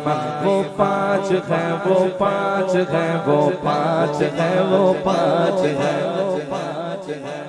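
A man singing an Urdu devotional qasida into a microphone in long, wavering, ornamented phrases over a steady low drone. The singing fades near the end.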